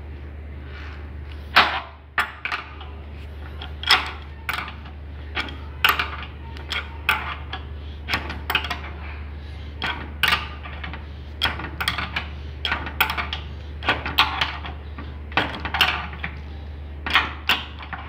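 A metal wrench clicking and clinking against the nuts of braided water-heater supply hoses as the fittings are tightened: irregular sharp taps, about one or two a second, over a steady low hum.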